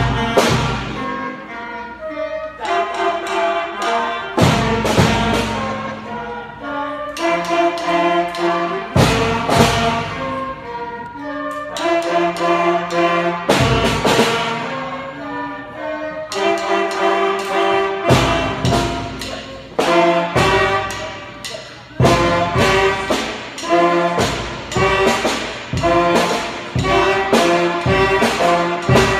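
A school concert band of flutes, clarinets, saxophones and bass drum playing a lively piece: full held chords that change every second or two, punctuated by drum hits that come more often in the second half.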